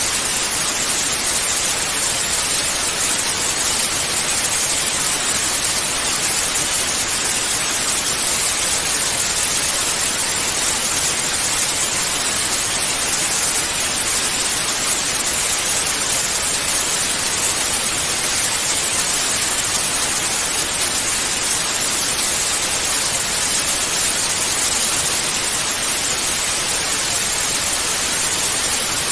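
Analogue TV static (snow noise): a steady, even hiss with no changes, brightest in the highs.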